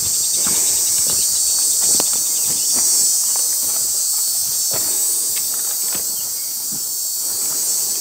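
Steady high-pitched buzzing of an insect chorus, with irregular footsteps on dry ground.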